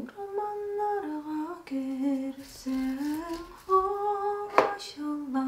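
A woman humming a slow tune of long held notes, alone with no instruments. A single sharp tap is heard about four and a half seconds in.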